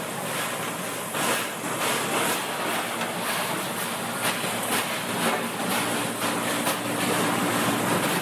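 Carrot bubble washing machine running: water churning and splashing steadily in the tank, with a low machine hum coming up in the second half.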